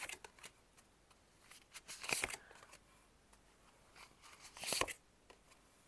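Tarot cards being handled: two short papery rustles, about two seconds in and again near the end.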